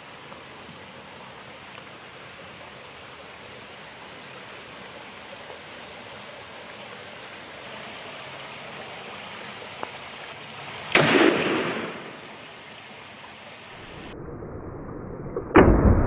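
Steady rush of creek water, then a single gunshot from a long gun about two-thirds of the way in that rings off for about a second. Near the end another loud bang, followed by sustained loud noise.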